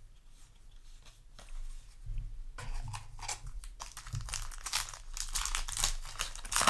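Foil Yu-Gi-Oh! booster pack wrapper being handled, torn open and crinkled: quiet at first, then from about two seconds in a dense run of crackles that grows louder toward the end.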